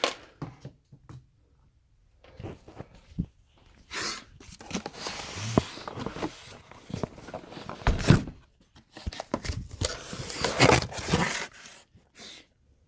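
Rummaging through stored items: irregular scraping, rustling and knocks, with the loudest clatters about eight seconds in and again near the end.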